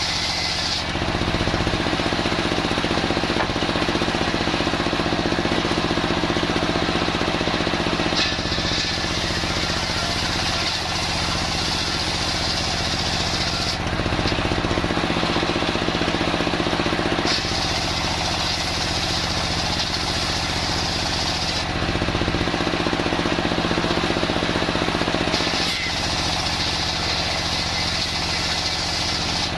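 Homemade circular sawmill running steadily while its blade saws an old log into boards. The sound shifts back and forth every few seconds as the cut goes on.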